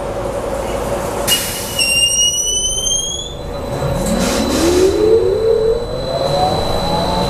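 BKM 43300D trolleybus's electric traction drive under way, heard from inside the cabin. Just over a second in, a high-pitched whine starts suddenly and rises slightly for about two seconds. From about halfway through, a lower whine climbs steadily in pitch as the trolleybus accelerates.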